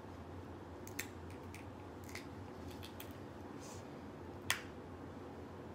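A few scattered sharp clicks and small cracks of a seafood shell being picked and peeled apart by hand, the sharpest about four and a half seconds in, over a faint low hum.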